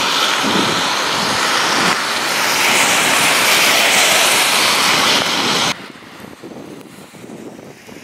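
Loud steady rushing hiss of a rainstorm on a wet street: wind, rain, and tyres spraying on the wet road. It drops suddenly to a quieter hiss about two-thirds of the way through.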